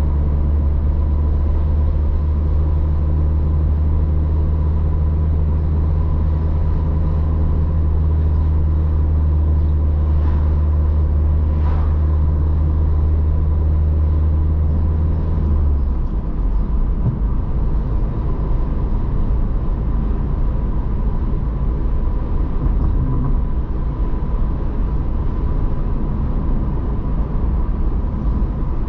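Car driving, heard from inside the cabin: a steady low engine hum with road noise, which breaks off suddenly about halfway through into a rougher low rumble. A faint steady high tone runs beneath it.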